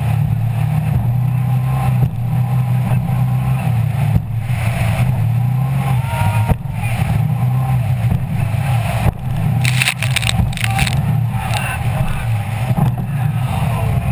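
Donzi go-fast boat's engine running at speed, a steady low drone that steps up and down in pitch a few times, with a short burst of hiss about ten seconds in.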